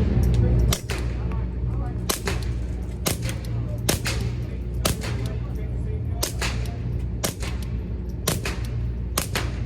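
Suppressed .22LR pistol, a Glock 26 with an Advantage Arms conversion slide and an Otter Creek Labs Titanium 22 suppressor, firing 36-grain Remington Golden Bullets in a slow string of about nine shots, roughly one a second. The slide cycles each round. A steady low hum runs underneath.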